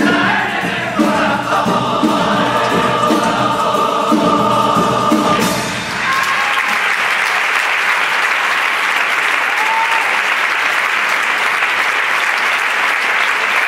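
A Carnival comparsa's all-male choir sings in several parts with guitar accompaniment and holds its final chord. About six seconds in the song ends and a theatre audience breaks into loud, steady applause that carries on.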